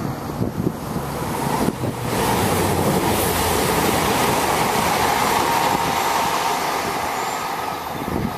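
A Class 220/221 Voyager diesel multiple unit passing close and running away: a rush of engine and wheel-on-rail noise that comes in sharply about two seconds in, holds steady with a faint whine, and begins to ease off near the end.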